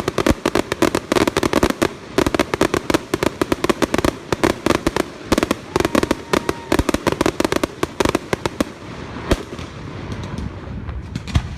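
Fireworks going off in a rapid volley of sharp crackling pops, which thins out near the end of the volley, followed by a single louder bang and a few scattered pops.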